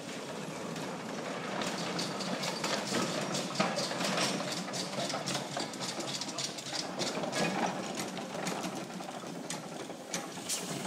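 Miniature steam traction engine running along a cobbled yard, its exhaust chuffing in quick, slightly uneven beats a few times a second with mechanical clatter.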